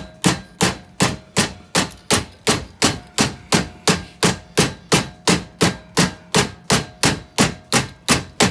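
Steady, even hammer blows on a thin steel exhaust pipe, about three to four a second, flattening it to fit into the heater manifold.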